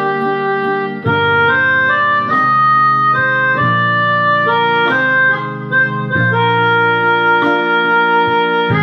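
Electronic keyboard played with both hands: a melody of held notes over sustained chords that change about every second or so.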